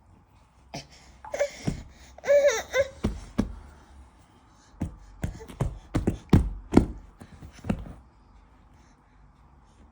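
A baby's high-pitched squeals and vocal noises in the first few seconds, then a run of about ten sharp pops over the next five seconds.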